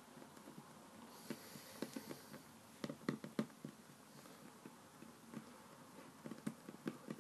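Fingers pressing and patting a small piece of play dough flat on a wooden tabletop: scattered soft taps in a few quick clusters, the loudest near the middle.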